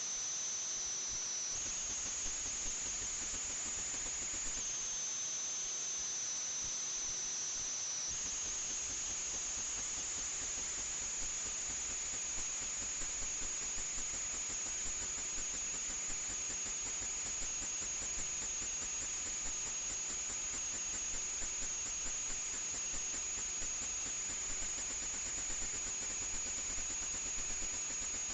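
High-pitched whine over a steady hiss from an FPV quadcopter's motors, heard through its onboard camera. The whine shifts up and down in pitch a few times in the first eight seconds, then holds steady.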